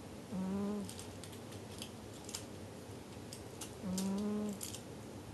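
Domestic cat snoring in its sleep: two short, pitched snores about three and a half seconds apart, each lasting around half a second. Faint scattered clicks between them.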